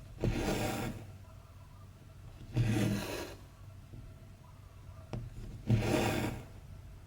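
Cross-stitch thread pulled through stretched fabric: three rubbing pulls, each under a second long, about three seconds apart, with a short sharp tick of the needle just before the last.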